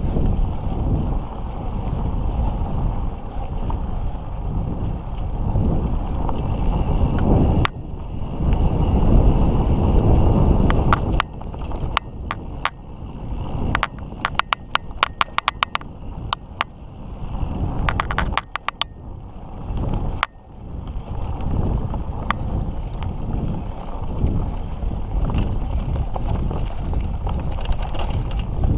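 Mountain bike riding along a dirt trail: steady rumble of tyres and wind on the microphone, with a run of sharp clicks and rattles about halfway through.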